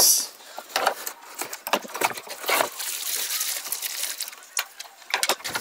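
Unboxing rustle: a cardboard box being opened, then the plastic bag and foam sheet around the unit rustling and crinkling, with scattered light taps and knocks.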